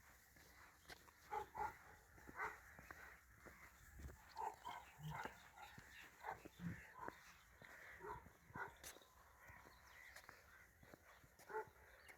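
Faint dog barking: a string of short barks, irregularly spaced about a second apart.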